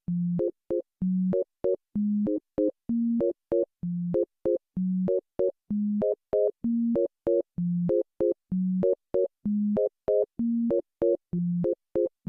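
Electronic synthesizer music: a looping pattern of a short bass note, alternating between two pitches, each followed by two quick higher chord stabs, repeating a little faster than once a second.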